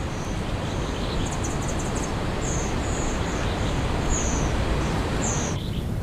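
Forest ambience: a steady background noise with several short, high-pitched bird chirps scattered through it. The higher part of the background noise drops away abruptly near the end.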